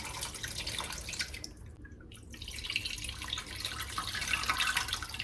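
Water pouring into a rice-cooker inner pot to cover the chicken pieces, breaking off briefly about two seconds in and then running again.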